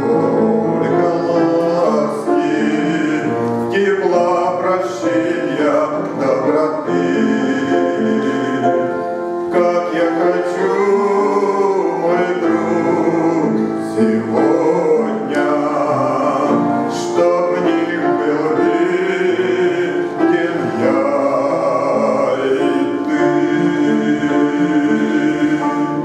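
A man singing a Christian hymn over instrumental accompaniment, performed as church music.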